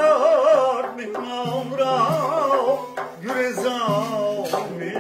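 A man sings a folk song in phrases with a wavering, ornamented line, accompanied by a plucked tar and a hand-struck frame drum (doira).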